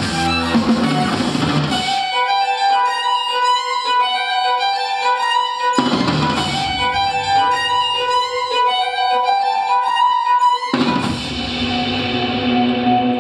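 Instrumental music with a melody of short, repeated high notes. The low drums and bass drop out about two seconds in and come back near six seconds. A swell of sustained tones comes in near eleven seconds.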